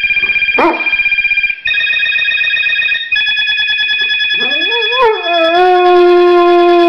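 A telephone plays a ringtone of steady high electronic tones that change note every second or so. A bulldog-type dog gives a brief yelp about half a second in. From about four seconds in it howls along, rising in pitch and then holding one long note.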